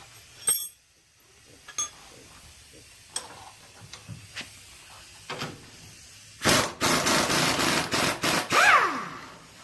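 Scattered clicks and knocks of tools on the front suspension of a 1996 Honda Civic, then about two-thirds of the way in a loud burst of rapid hammering that lasts a couple of seconds: an impact wrench working the 17 mm bolt at the bottom of the strut.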